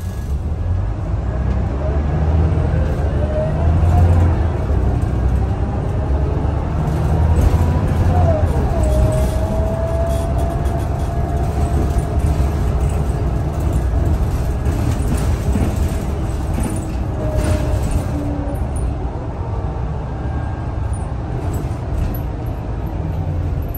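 Scania L94UB city bus heard from inside the passenger cabin, driving and accelerating: a steady low engine rumble with a driveline whine that rises, drops sharply about eight seconds in, then holds steady before fading.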